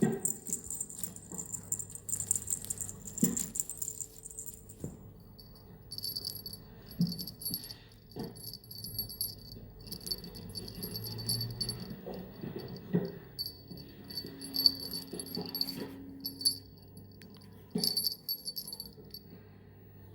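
A small bell jingling in short, irregular shakes, with a few soft knocks in between.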